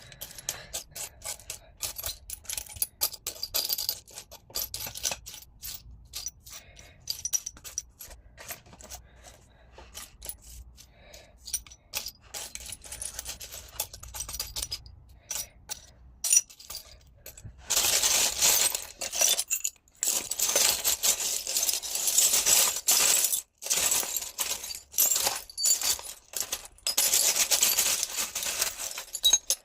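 Pieces of scrap clear glass clinking and scraping against each other as they are handled, scattered clicks at first, then a denser, continuous rattle of many pieces moved together through the second half.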